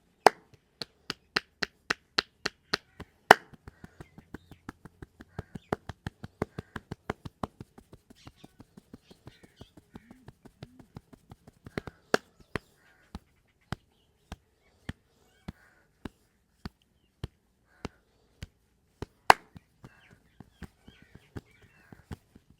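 Sharp percussive hand strikes of a massage: a fast, even run of about three or four a second for the first several seconds, then slower, sparser strikes, with a few louder ones near the start and about three-quarters of the way through.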